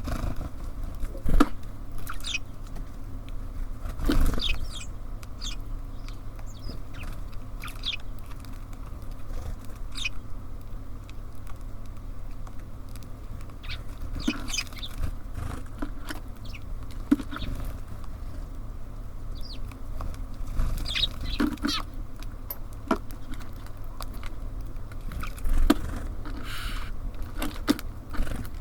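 Small birds at a feeder: scattered short chirps and calls mixed with sharp taps and pecking sounds, over a steady low rumble.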